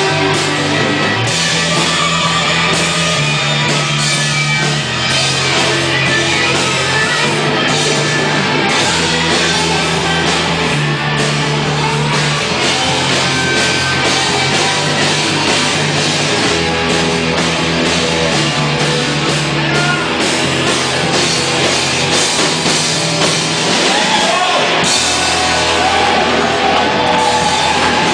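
Loud rock music with distorted electric guitar, bass and drum kit.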